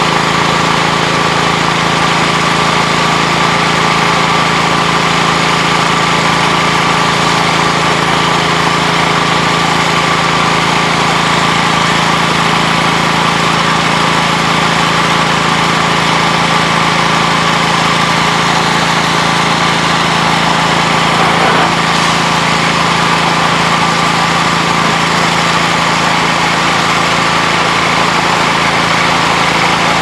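A steady mechanical drone, like a motor running, at one pitch and level throughout.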